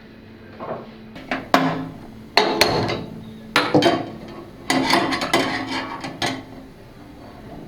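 Kitchen clatter: a run of sharp knocks and scraping, starting about a second in and busiest in the middle, with a faint steady hum underneath.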